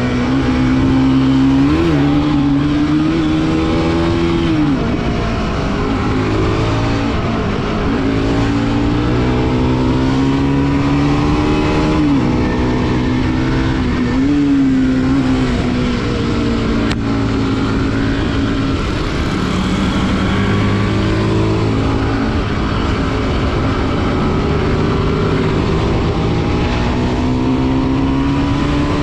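Bajaj Pulsar NS200's single-cylinder engine running under way, its pitch rising and dipping several times with the throttle and gear changes, then climbing slowly near the end.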